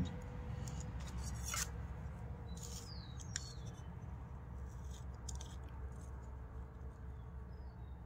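Faint clicks and light scrapes of a dial caliper being slid open and set on a clutch friction disc to measure its thickness, with a few short high squeaks, over a steady low hum.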